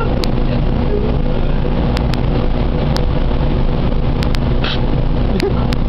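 Steady, loud low rumble of shipboard machinery and ventilation with a faint hum, broken by a few sharp clicks.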